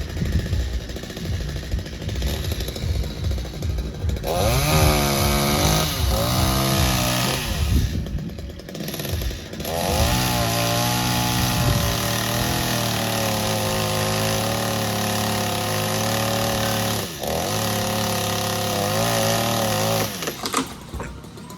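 Two-stroke chainsaw ticking over unevenly, then revved up and down several times before running at steady high revs for about ten seconds, with a brief break in the middle, and dropping back near the end.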